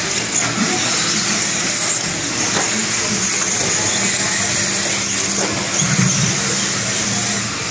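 Battery-electric RC stadium trucks racing on an indoor dirt track: a high, thin motor whine that rises and falls over a steady hiss of the hall. A brief low thump comes about six seconds in.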